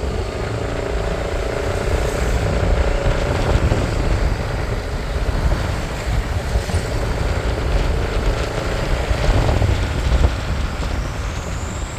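Road and engine noise heard while riding in a moving vehicle: a steady, loud low rumble with rushing noise.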